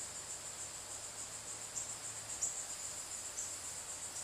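Crickets trilling in a steady, high-pitched pulsing chorus, with a few short, sharper chirps over it.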